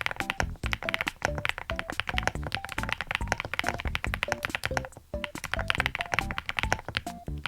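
Fast typing on a QK65 MK3 mechanical keyboard with 80Retros Game 1989 keycaps: rapid, overlapping key clacks. A simple melody of short notes plays under the typing.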